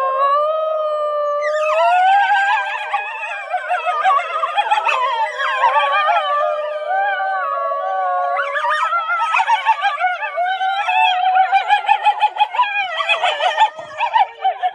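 Wolves howling: one long howl, then from about two seconds in a pack chorus of many overlapping, wavering howls, turning choppier near the end before cutting off abruptly.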